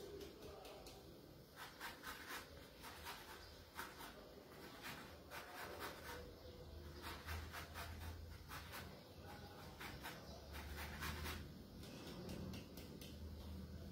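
A lemon grated on a handheld zester, taking off only the yellow zest: faint, quick scraping strokes that come in irregular runs.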